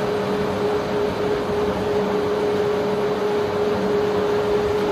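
Alluvial sand pouring steadily down through a barge's hold as it is unloaded, a continuous rushing hiss, with a steady mechanical hum beneath it.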